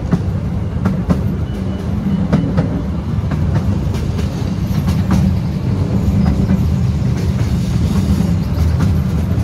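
Miniature railway train on 12-inch gauge track heard from an open carriage: a steady low rumble of wheels on rail, with irregular sharp clicks as the wheels cross the rail joints.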